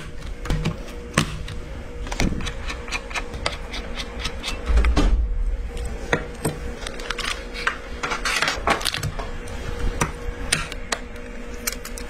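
Hands handling computer parts and their plastic packaging: scattered clicks and taps of hard plastic, a dull thump about five seconds in, and a longer packaging rustle near the end.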